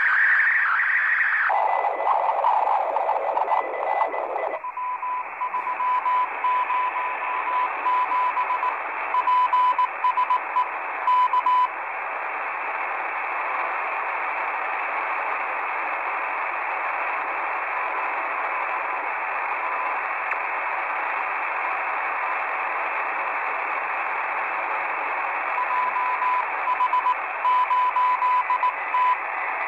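Shortwave receiver hiss from a software-defined radio on the 40-metre amateur band, with a Morse code (CW) signal heard as a tone of about 1 kHz keyed on and off, in a stretch a few seconds in and again near the end. The hiss shifts in pitch during the first few seconds as the receiver is retuned.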